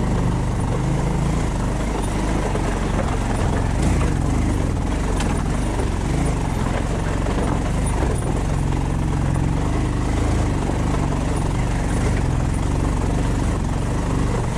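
A motor vehicle's engine running steadily while under way, its pitch shifting slightly, over a steady rush of road noise.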